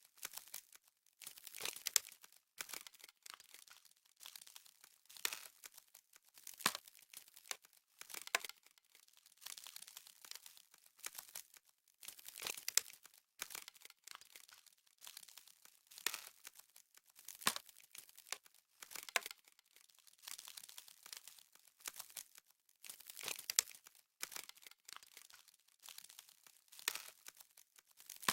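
Crisp crackling and rustling of frost in irregular bursts every second or two, mostly high-pitched with hardly any low end.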